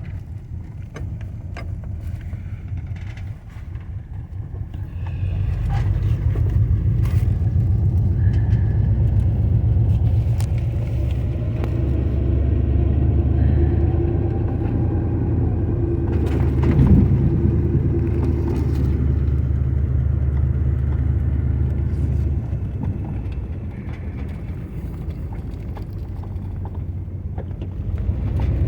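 Car running with a steady low rumble of engine and road noise, growing louder about five seconds in as it gets under way and easing off again a few seconds before the end.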